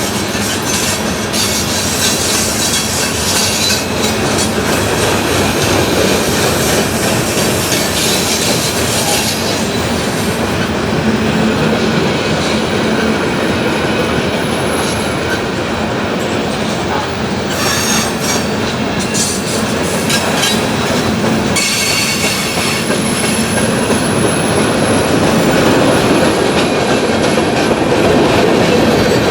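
Freight train cars rolling past at close range: a steady rumble and rattle of steel wheels on the rails, with a thin high-pitched squeal now and then.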